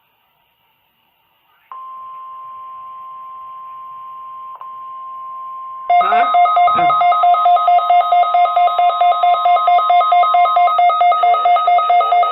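NOAA Weather Radio weekly test. After a short silence the steady single-pitch warning alarm tone sounds. About four seconds later a much louder pulsing two-tone beep, about five pulses a second, starts over it: a weather alert receiver's alarm set off by the tone.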